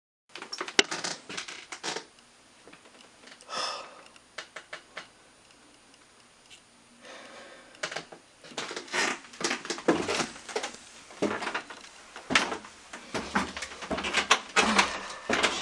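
Irregular knocks, clicks, scuffs and rustling of a person making their way in through a dark cellar entry, with bumps against wooden boards and handling noise. They are sparse at first, pause for a few seconds in the middle, and come thick and fast from about eight seconds in.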